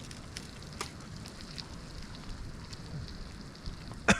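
Campfire crackling over a steady hiss, with scattered small snaps and one sharp, loud pop near the end.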